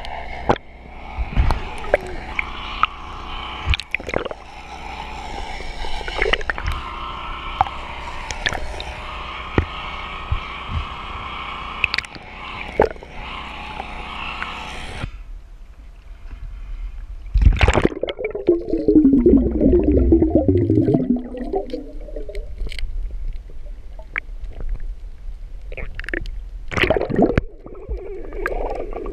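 Underwater sound heard through a submerged action-camera housing: sharp clicks and knocks of mussel shells being handled, over a steady murky hum that stops about halfway. About two-thirds of the way in comes a loud bubbling gurgle lasting several seconds.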